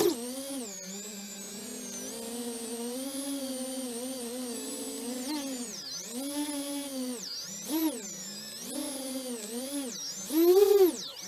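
Small FPV cinewhoop quadcopter's four iFlight Xing 1408 3600 kV brushless motors, on a 4S battery, whining with the pitch swinging up and down as the throttle changes. A sharp click comes right at the start, and the loudest, highest-pitched burst of throttle comes near the end.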